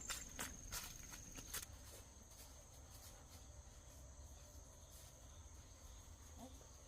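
Footsteps crunching along a path for the first second or two, then fading, over a thin steady high trill of insects such as crickets.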